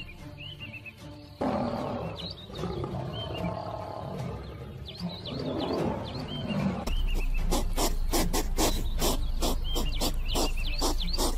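Big cat growling, a deep rumbling sound from about a second and a half in, cutting off near the middle. A fast run of sharp clicks, about three or four a second, follows and is the loudest part.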